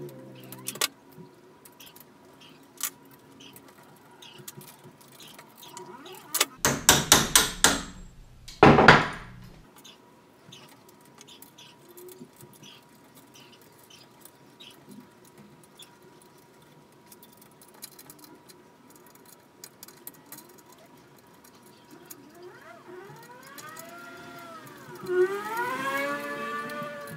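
Hand assembly on an aluminium CNC router frame as stepper motors and timing belts are fitted: scattered tool clicks and taps, a quick run of loud knocks about six and a half seconds in, then one loud knock. Near the end comes a whir that rises and falls in pitch as the belt pulley is turned by hand.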